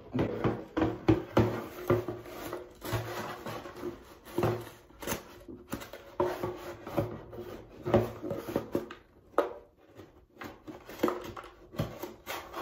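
Borax powder being shaken out of its cardboard box into a stainless steel mixing bowl. The box is tapped and jostled in irregular knocks and rustling scrapes.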